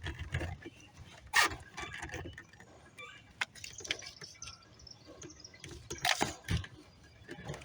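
Hands pressing and handling a plastic diffuser against a car's rear bumper: scattered light clicks, taps and rubbing, with louder brief scuffs about a second and a half in and again around six seconds.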